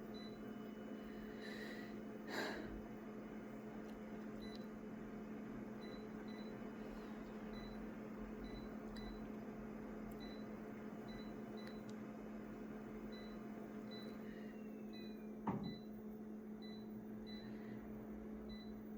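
Photocopier humming steadily, with faint short high pips repeating through and two brief knocks, a light one about two seconds in and a sharper one about three-quarters of the way through.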